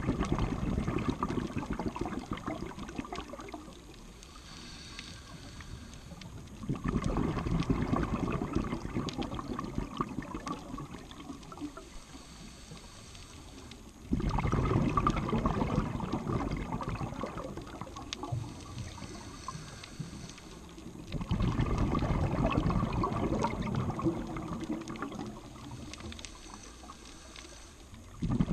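A scuba diver breathing through a regulator, heard underwater: a rush of exhaled bubbles starts suddenly about every seven seconds and fades into a quieter pause before the next breath.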